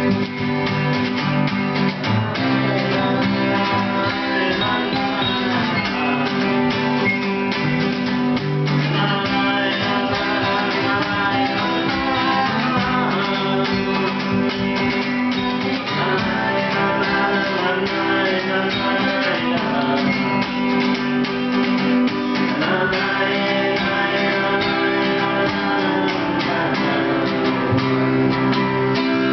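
Two acoustic guitars playing an instrumental passage at the end of a song, with steady, continuous chords.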